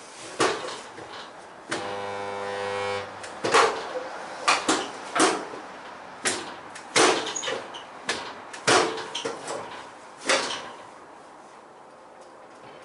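Resistance spot welder at work on steel car bodywork: a steady electrical hum lasts a little over a second about two seconds in as a weld is made. About a dozen sharp metallic clunks and snaps are spread through the rest.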